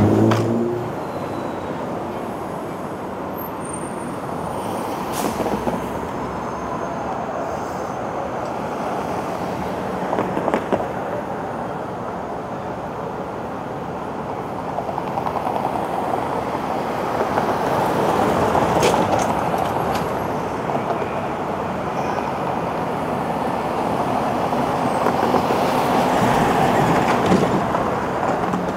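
City street traffic: cars driving through an intersection, swelling and fading as they pass, with a box truck going by close near the end.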